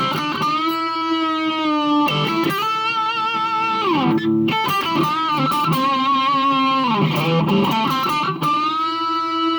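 Electric Stratocaster on its humbucker pickup through an overdriven amp channel, playing a lead line of long sustained notes with vibrato and sliding pitch bends.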